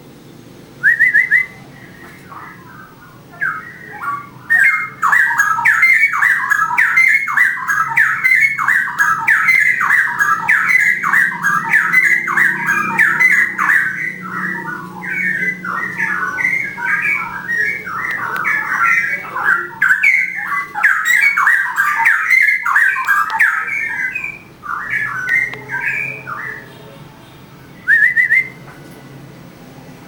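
A caged songbird singing a long, fast song of quick chattering and whistled notes, starting about four seconds in and stopping shortly before the end. A short rising whistle comes just before the song and another near the end.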